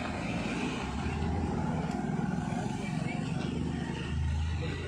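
Road traffic passing close by, a motor scooter's engine among it, with indistinct voices of people talking. A low engine hum swells about four seconds in.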